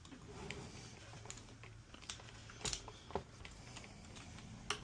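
Light clicks and taps of plastic parts and wire connectors being handled inside an espresso machine, with two sharper clicks, the first about two and a half seconds in and the second near the end.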